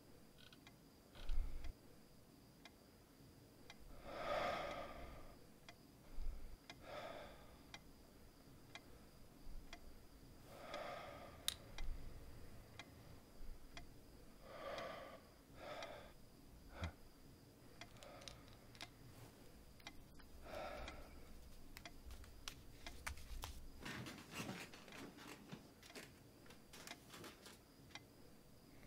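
Wooden rocking chair creaking softly, a short creak every few seconds, with low soft thumps and faint clicks between them.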